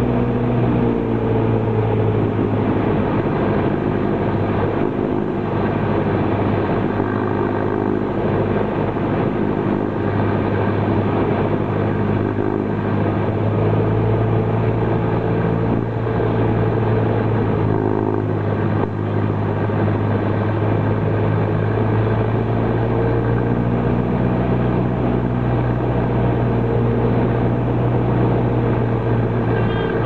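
Cessna 172 Skyhawk's piston engine and propeller droning steadily inside the cabin at approach power, with small shifts in pitch now and then.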